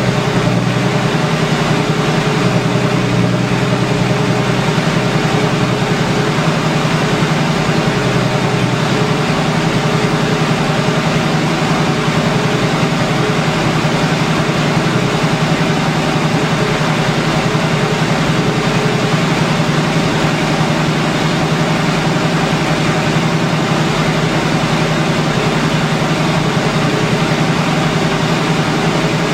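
AMC 258 (4.2 L) inline-six engine idling steadily through a straight-pipe exhaust.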